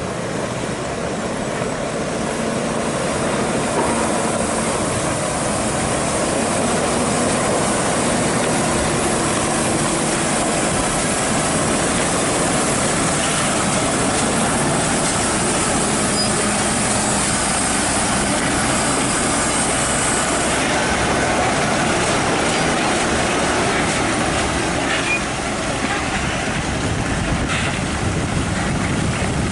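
Diesel engine of a FAW semi-trailer truck, heavily loaded with steel rebar, running steadily as the rig drives slowly past on a muddy dirt road, with a steady low engine drone that eases slightly near the end as it moves away.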